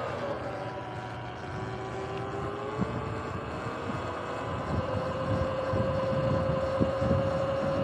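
Sur-Ron electric dirt bike's motor whining while riding on pavement. The whine shifts in pitch in the first half, then holds steady from about halfway, over a low rumble of wind and tyres with a few light knocks.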